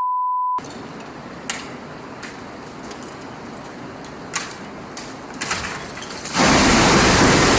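A short single-pitch censor bleep at the start, then a low background with a few sharp clicks, and a loud, even rushing noise that sets in suddenly about six seconds in.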